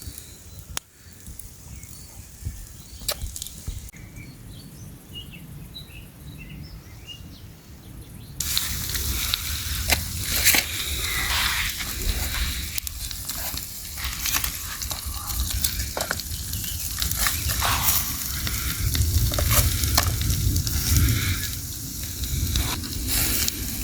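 Food sizzling over a campfire, dense crackling hiss with frequent sharp pops, starting abruptly about a third of the way in. Before it, a quiet stretch with a few faint high chirps.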